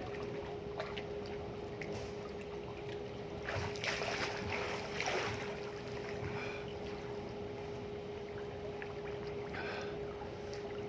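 Steady hum of a ship's machinery, holding one constant tone, with a louder rushing noise about four to five seconds in.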